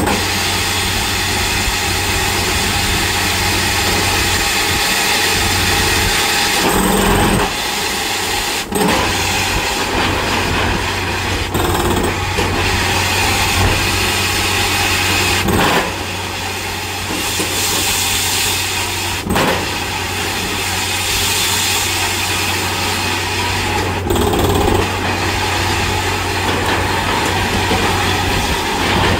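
Borewell drilling rig running: a loud, steady machine din with a constant low hum, broken by a few brief dips.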